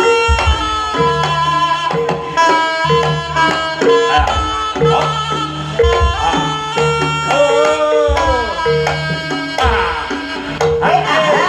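Live Javanese jaranan gamelan accompaniment: hand drumming on kendang over a repeating cycle of ringing gong and metallophone tones. A wavering melody line with bending pitch comes in about seven seconds in and again near the end.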